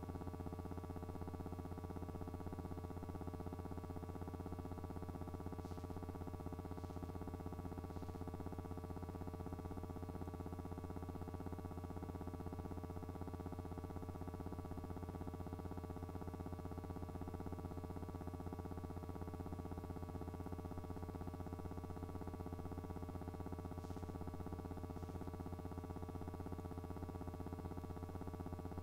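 Steady low electrical hum with a faint even hiss, unchanging throughout, with a few faint ticks: the transfer's background noise rather than any sound of the scene.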